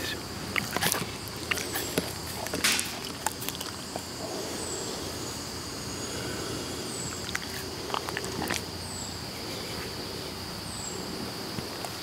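Rustling and knocking of a wolf's fur and a hand brushing right against the microphone, most of it in the first three seconds. Under it, a steady high insect buzz and a short, high falling chirp repeating every two seconds or so.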